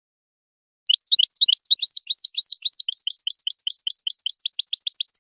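European goldfinch singing: a fast, unbroken run of short, high, mostly rising notes, about eight a second, starting about a second in.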